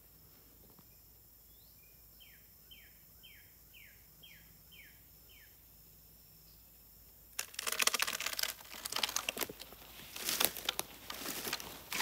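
A bird sings a quick run of about seven short falling notes over quiet woodland. Then, a little past halfway, loud irregular crunching and crackling of footsteps through dry leaf litter and twigs takes over.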